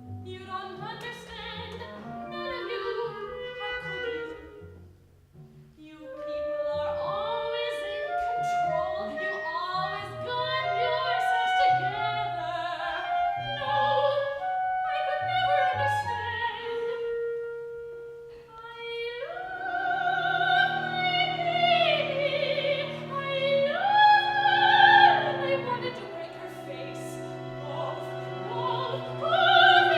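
Soprano singing an opera aria over instrumental accompaniment. Shorter phrases come first; from about two-thirds of the way in she holds long, louder high notes with a wide vibrato.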